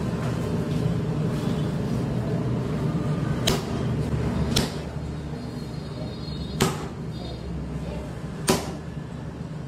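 Four sharp slaps a second or two apart as the stuffed kulcha dough is slapped flat by hand, over a steady low hum.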